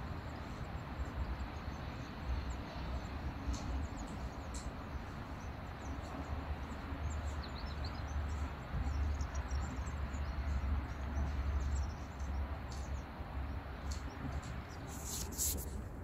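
Outdoor ambience: a steady rushing background noise with a low rumble that swells in gusts around the middle, with faint, scattered bird chirps. A brief rustle comes near the end.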